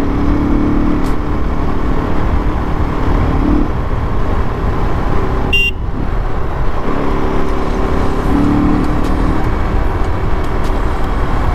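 KTM RC390's single-cylinder engine running on the move, its note coming and going as the throttle changes, under heavy wind rumble on the helmet-mounted microphone. There is a brief high beep about five and a half seconds in.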